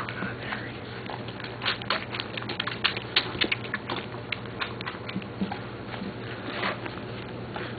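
West Highland white terrier puppies feeding, their mouths making quick, irregular clicks that come thickest a couple of seconds in.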